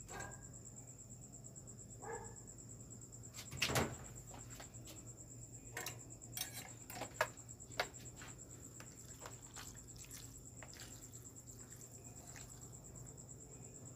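A steady high insect trill, like a cricket, runs over a low hum. Two short pitched calls come near the start and about two seconds in. A loud knock comes about four seconds in, and a few sharp clicks come between six and eight seconds, from handling around the dish.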